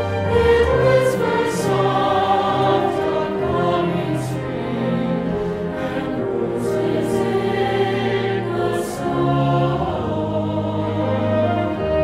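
Mixed choir singing held chords in a slow carol, with an instrumental accompaniment of sustained low bass notes underneath.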